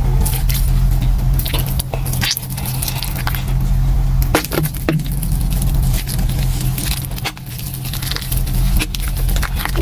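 Thick wet gym chalk paste squelching as hands squeeze and knead it, with many short clicks and crackles scattered through it.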